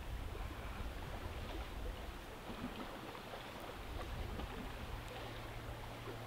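Faint, steady outdoor background noise with a low rumble. A low steady hum joins about two-thirds of the way through.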